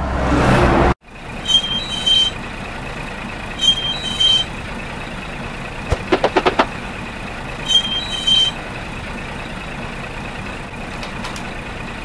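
Added truck sound effect: a heavy truck engine rises and cuts off about a second in, then runs steadily. Short hisses come in pairs every few seconds, and a quick run of five short beeps comes about six seconds in.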